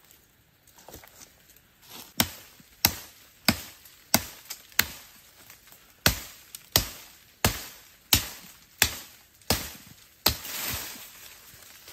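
Machete chopping into woody brush: about a dozen sharp strikes, roughly one and a half a second, starting about two seconds in. Near the end the strikes give way to a brief rustle of leaves and twigs.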